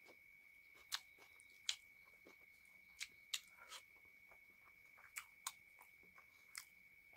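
Close-miked mouth sounds of chewing a handful of rice and chicken curry: scattered sharp, wet smacks and clicks, about seven in all, over a faint constant high-pitched tone.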